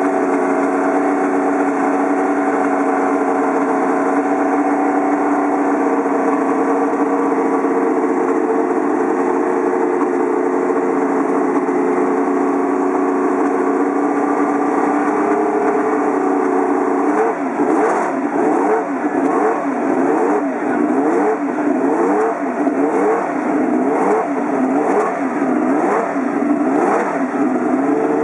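Ferrari 312 T4's flat-12 Formula One engine being warmed up: it idles steadily, then is blipped about once a second for some ten seconds, each rev rising and falling, before settling back to idle near the end.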